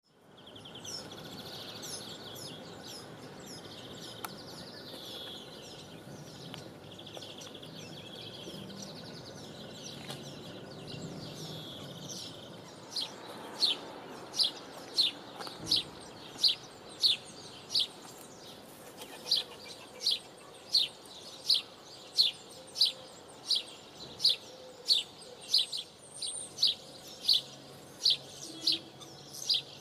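Birds singing over a steady outdoor background, then about halfway through a level-crossing warning bell starts: short, sharp, high rings, about two a second, evenly spaced and louder than the birds.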